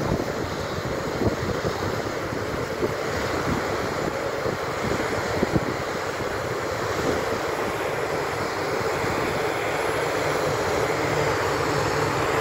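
Newly drilled water well blowing out a tall jet of water and air with a steady rushing roar, a sign that the borehole has struck water. A steady hum runs underneath.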